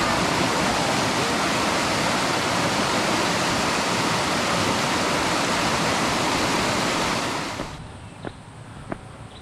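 Fast-flowing river rushing, a loud, steady wash of water noise. It cuts off suddenly near the end, leaving a quieter background with a few faint clicks.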